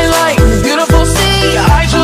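Background music with a steady hip-hop beat: a deep kick drum that drops in pitch on each beat, about two a second, under sustained synth chords.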